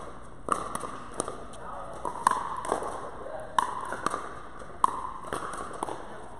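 Pickleball rally: about ten sharp hollow pocks of paddles striking the plastic ball, with some of the ball's bounces on the court among them, coming every half second or so. Each pock rings briefly in the echoing indoor hall.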